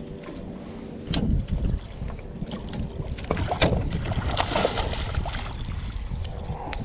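Wind buffeting the microphone over water lapping at a small boat, with several sharp knocks and clicks as fishing gear is handled.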